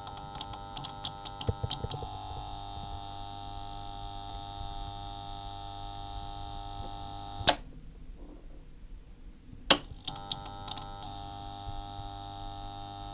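Electronic intro drone of several steady held tones over a low hum, with clusters of light ticks. A sharp click about seven and a half seconds in cuts the drone off, and another click two seconds later brings it back.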